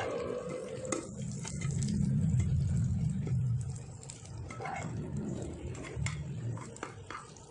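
Rolled egg omelette frying in oil in a pan, with a metal spatula scraping and tapping against the pan as it rolls and turns the omelette. Several sharp clicks come over the frying noise.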